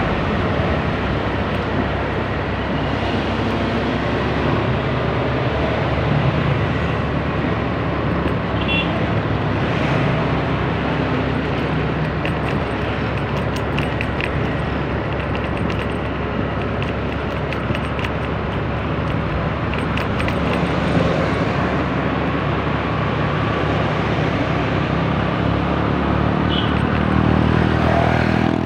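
Motor scooter riding along a road: a steady engine hum under constant wind and road noise.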